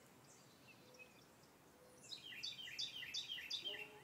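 Wild songbirds calling softly, then about halfway through one bird sings a loud, fast run of repeated downward-sliding notes.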